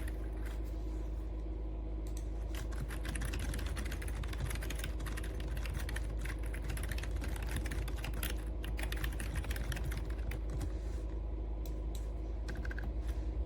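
Typing on a Logitech Wave Keys wireless ergonomic keyboard: a rapid run of key clicks, densest from about two seconds in until about eleven seconds, then thinning out, over a steady low hum.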